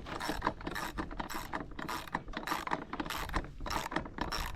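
Ratchet wrench clicking in quick strokes, about four clicks a second, as the nut is run down the carriage bolt that holds the mower's front wheel.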